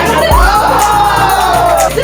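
Background music: a track with a deep bass note held under a lead melody that slides in pitch, and light percussion ticks.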